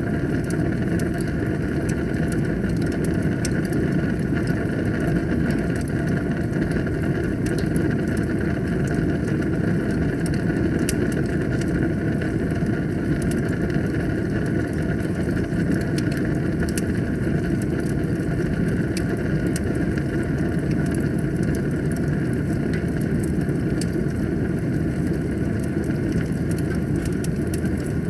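Wood fire burning in a fireplace: a steady low rumble of flames with many small crackles and pops scattered throughout.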